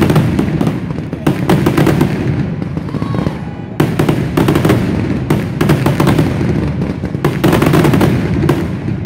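Fireworks finale barrage: aerial shells bursting in rapid, overlapping bangs. It thins briefly about three seconds in, then a sudden fresh volley resumes just as densely.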